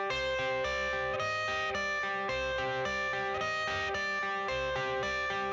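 Background music: a guitar-led instrumental intro playing a steady, repeating pattern of notes.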